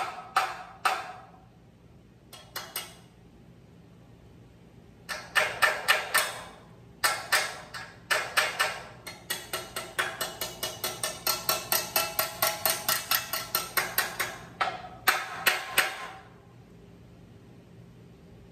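Hammer blows on steel in several quick runs of about four strikes a second, each blow ringing briefly. The longest run lasts about six seconds, with short pauses between runs.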